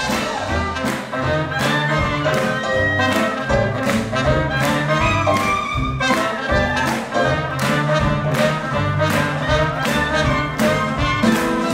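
Swing jazz band playing an up-tempo number: trumpet and saxophone lines over drums keeping a steady beat.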